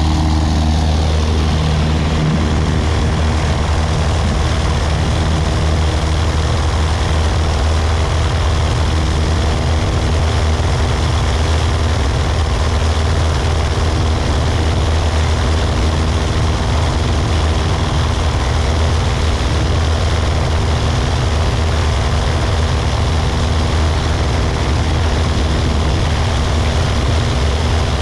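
Engine and propeller of a light fixed-wing aircraft running steadily just after takeoff. A slight shift in pitch comes in the first couple of seconds, then a constant drone.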